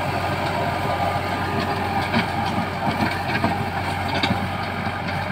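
Swaraj tractor's diesel engine running steadily under load while it pulls a Shaktiman rotavator tilling the soil, with a few short knocks in the middle.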